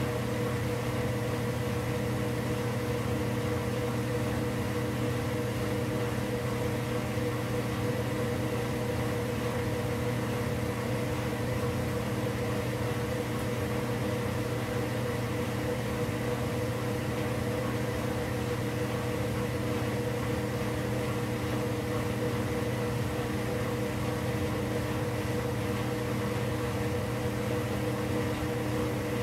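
A steady mechanical hum, with a low drone and several constant tones that do not change. There are no agitator strokes or sloshing.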